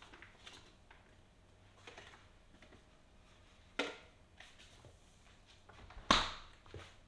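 Someone rummaging in a refrigerator: soft rustles and clicks of food containers, a sharp clack about four seconds in, and the fridge door pushed shut with a thump about six seconds in.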